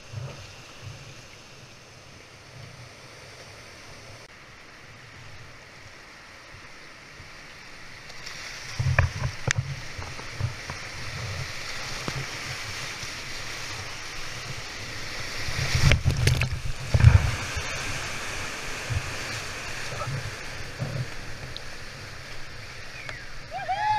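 Rushing whitewater heard from a kayak running rapids, growing louder about eight seconds in, with wind buffeting the microphone. Heavy thumps and splashes of water against the boat and camera come around nine seconds in and again around sixteen to seventeen seconds in.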